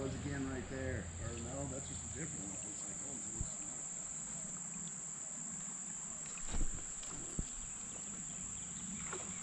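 Steady high-pitched insect chorus, with a few faint knocks near the middle and later on.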